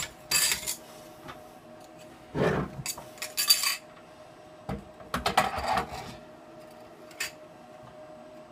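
Metal parts of a hard drive platter being handled: several short bursts of metallic clinking and clattering, with a faint steady hum underneath.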